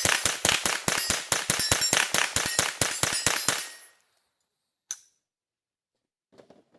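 AR-15 with a CMMG .22 LR conversion kit firing a rapid semi-automatic string, about five shots a second. The firing stops about three and a half seconds in, and a single sharp click follows a little over a second later.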